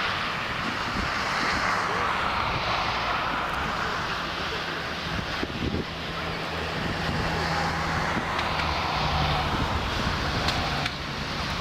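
Jet airliner's engines running as it flies low near the runway, a steady, dense jet noise that swells and eases slowly.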